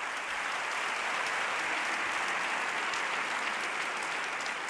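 A large seated audience applauding steadily, many hands clapping at once.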